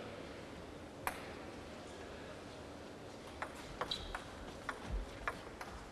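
Table tennis rally: the celluloid ball clicking sharply off the bats and table, about two to three hits a second, starting about three and a half seconds in. A single click comes about a second in.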